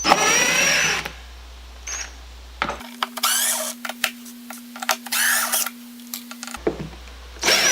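Cordless impact driver backing out slotted wood screws, running in several short bursts with a high whine that wavers in pitch.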